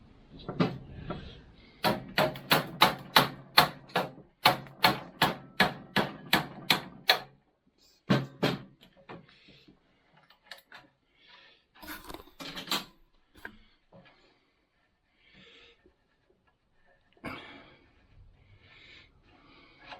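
A rapid run of hammer blows, about three a second for some five seconds, while a part is driven free during the strip-down of a Honda CT90. After them come a few lighter knocks and a short rattle of small parts being handled.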